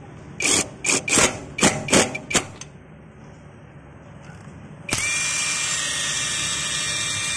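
Cordless impact wrench working a wheel lug nut in about six short trigger bursts, then, about five seconds in, running free off the nut with no load, a steady whine.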